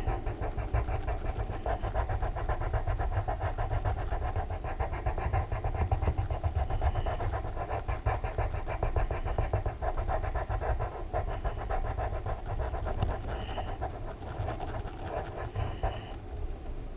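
Coloured pencil scratching quickly back and forth on colouring-book paper, a dense run of fast strokes laying down dark colour under pressure, with heavy breathing close to the microphone.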